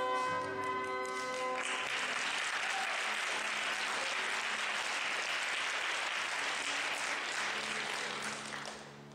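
A period-instrument orchestra holding a sustained tuning note, which stops after about a second and a half. Audience applause follows and fades away near the end.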